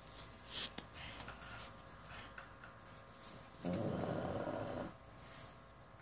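A pug snoring in deep sleep: one loud snore lasting about a second, a little past halfway through, with a few faint clicks before it.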